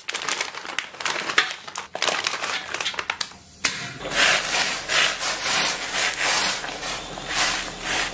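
A plastic luosifen packet crinkling as it is torn and squeezed out over a stainless wok. After a short lull about three seconds in, water boils in the wok with a pulsing rush while wooden chopsticks stir the rice noodles.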